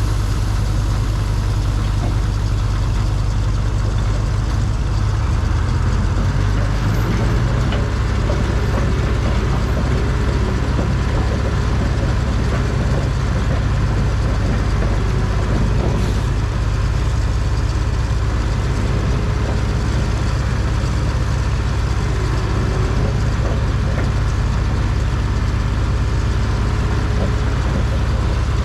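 Cat D6 bulldozer's diesel engine running steadily at a low, even speed.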